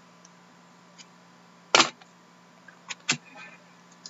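Trading cards and card holders handled on a wooden table: one sharp knock a little under two seconds in, then two lighter clicks about a second later, over a faint steady hum.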